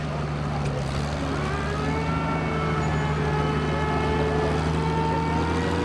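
Vintage Cockshutt farm tractor's engine running, its pitch and loudness slowly rising as it is revved up.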